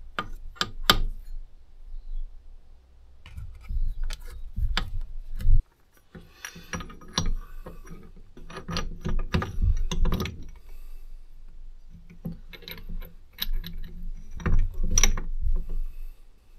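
Steel gears and shafts of a Kubota B7100 tractor's gearbox clinking and knocking against each other and the gearbox case as they are fitted by hand, in irregular clusters of metallic clicks with handling rumble underneath.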